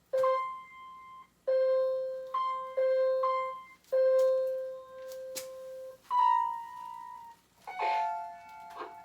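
Electronic foot-played floor keyboard playing a simple tune one note at a time, each note held about half a second to a second, with higher notes near the end and a few sharp clicks between notes.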